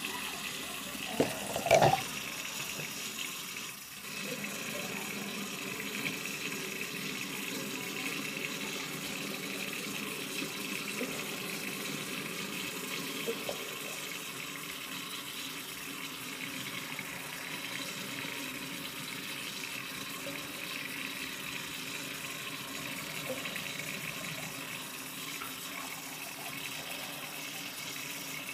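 Bathroom sink faucet running steadily, water pouring into the basin. A couple of short knocks sound between one and two seconds in.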